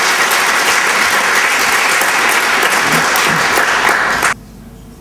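Audience applauding, dense clapping that stops abruptly about four seconds in.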